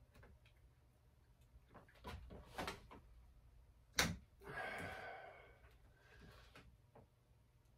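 Brake lever and its clamp being handled and fitted on a motocross bike's handlebar: a few light knocks about two seconds in, a sharp click about four seconds in, then a short rasping sound lasting about a second.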